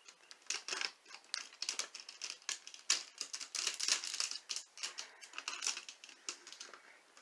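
Hard plastic parts of a combining robot toy clicking and rattling as they are handled and snapped together: a quick, irregular run of sharp clicks.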